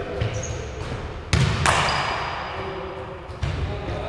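Basketball sounds in an echoing gym. About a second after a jump shot there is a loud bang with a ringing tail as the ball strikes the hoop, then the ball bounces on the wooden floor near the end. Short high sneaker squeaks come in between.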